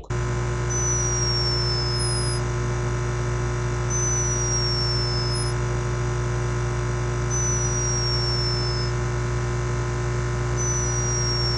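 A sleeping hummingbird snoring: four thin, high whistles, each sliding slightly down in pitch over about a second and a half, one roughly every three seconds. Beneath them runs a steady, louder low hum, the sound of the camera's microphone running at high sensitivity.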